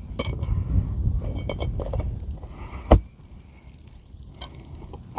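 A metal tool clinking and knocking against a roofing nail as the nail is worked out from under a lifted asphalt shingle: small clicks over a low rumble, then a sharp knock about three seconds in and a lighter one later.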